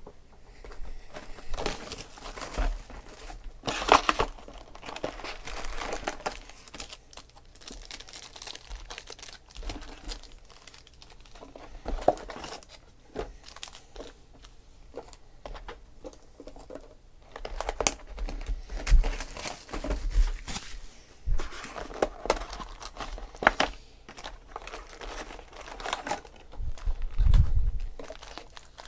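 Plastic wrapping and foil trading-card packs crinkling and tearing in irregular rustles as a hobby box is opened and its packs handled, with a dull bump near the end.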